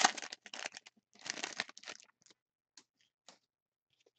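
Foil trading-card pack wrapper torn open and crinkled, in a few rustling bursts over the first two seconds, followed by a few faint ticks.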